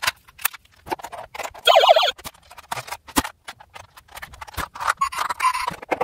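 Plastic toy fire trucks knocking and clicking as they are handled in a cardboard box, with a louder, noisier stretch about two seconds in.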